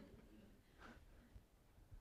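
Near silence: room tone in a lecture room, with one faint brief sound about a second in.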